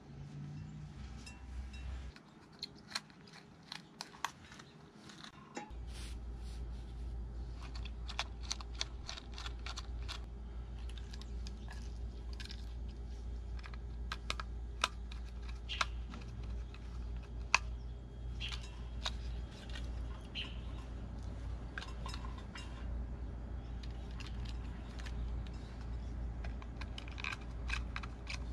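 Small clicks, ticks and scrapes of hand work on wiring: stripping the ends of red hookup wire, then a small screwdriver working the terminal screws of a panel power meter. A steady low hum comes in about six seconds in and stays under the clicks.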